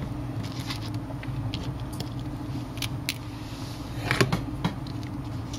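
Steady low hum with a few faint clicks and a brief rustle about four seconds in.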